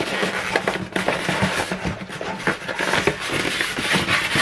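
Packaging being handled, with a dense, continuous run of crinkling and crackling.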